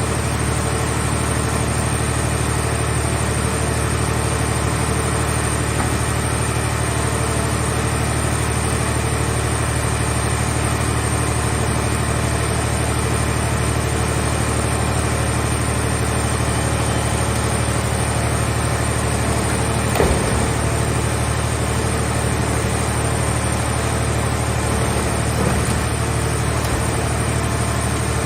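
Engine of a car shell baler running steadily at an even speed, with a short knock about twenty seconds in.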